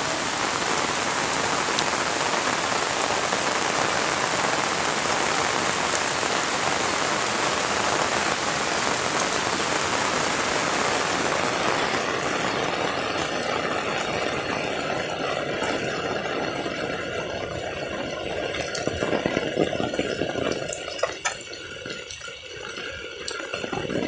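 Heavy rain falling steadily. About halfway through, the hiss thins and grows patchier, with a few sharp taps near the end.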